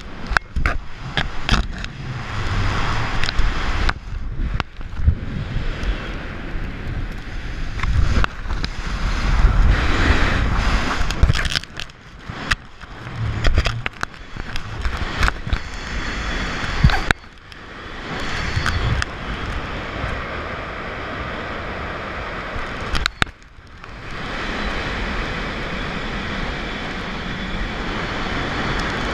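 Wind buffeting a wrist-mounted camera's microphone under a parachute canopy in flight: a gusty rushing and rumbling with crackling knocks, dipping away briefly twice, then settling into a steadier rush.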